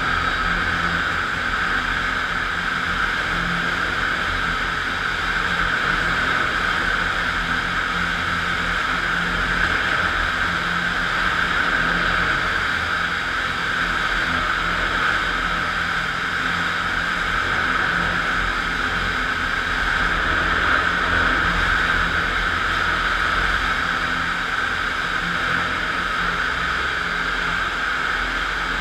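FastPrep floor grinder running steadily, its 16-grit diamond grinding plates cutting a concrete floor: a constant, even grinding noise with no breaks.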